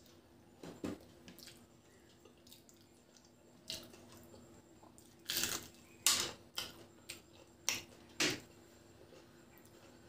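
Close-up wet chewing and lip smacks of a person eating rice and fried fish by hand: a scattered series of short, sharp smacks, most of them between about five and eight and a half seconds in.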